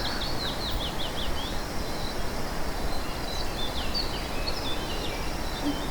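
Steady outdoor background noise with a small bird's high chirps: a quick run of falling notes in the first second and a half, and a few more near the middle.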